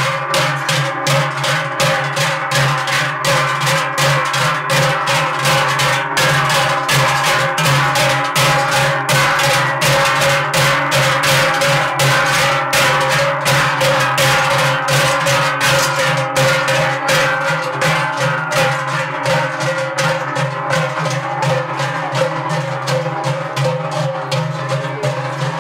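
A group of Trychler swinging large Swiss Treicheln cowbells in unison: a steady rhythmic clanging, with the bells' ringing tones blending into a continuous hum beneath the strokes.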